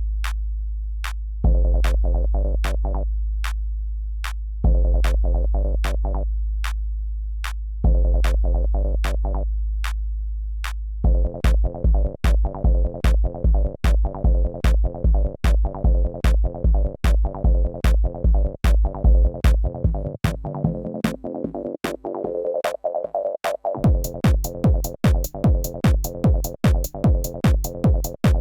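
Acid electronic music at 150 BPM played live on an Elektron Octatrack: long low bass notes that fade every few seconds under ticking hi-hats, then a steady four-on-the-floor kick drum comes in about eleven seconds in. Later the bass and kick drop out under a rising filter sweep, and the kick returns with faster hi-hats near the end.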